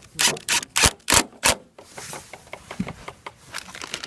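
Sharp tool strikes during sheet-metal roofing work, about three a second, stopping abruptly a little under two seconds in; after that, only light clicks and a faint scraping.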